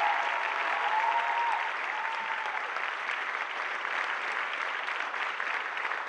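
Audience applauding, a dense patter of clapping hands, with a voice calling out over it in the first second or so; the clapping eases slightly after about two seconds.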